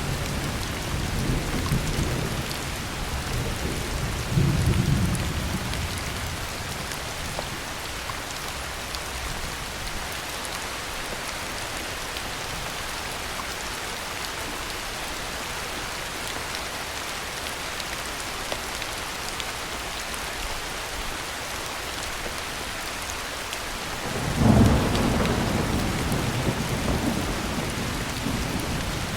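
Heavy rain falling steadily, with thunder. A rumble swells once about four seconds in and dies away, then a sudden thunderclap breaks about 24 seconds in and rumbles on, slowly fading.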